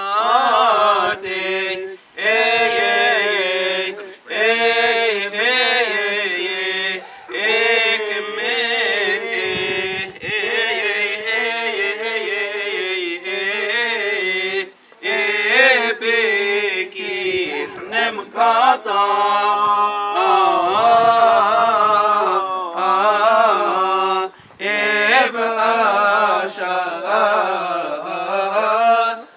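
Unaccompanied Coptic Orthodox liturgical chanting by male voice, long ornamented melodic phrases broken by short breaths.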